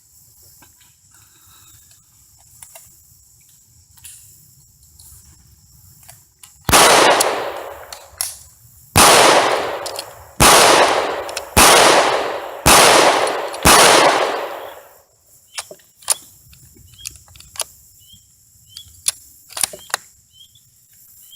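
Gunshots on an outdoor range: six loud, sharp reports about a second apart, each ringing off for about a second. A few much fainter sharp cracks follow.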